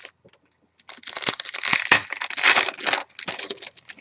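A trading-card pack wrapper being torn open and crumpled, a dense run of crinkling and crackling that starts about a second in and lasts nearly three seconds.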